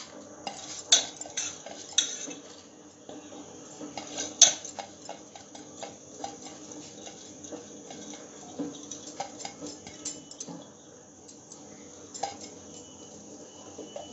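Metal clinks and scraping as soaked rice is tipped from a bowl into a steel pot of boiling water, the bowl knocking the pot. Sharp clinks about one, two and four seconds in, then lighter ticks and scrapes.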